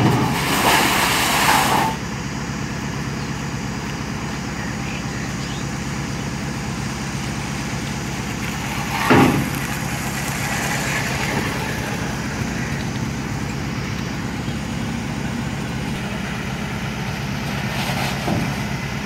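Engine idling steadily, with a loud burst of noise in the first two seconds and a single sharp knock about nine seconds in as the metal loading ramps are handled at the truck's tail.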